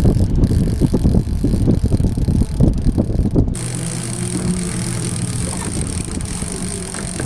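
Wind buffeting the microphone with a heavy rumble for the first three and a half seconds. After an abrupt change, the twin Yamaha 150 outboard motors hum steadily at low speed.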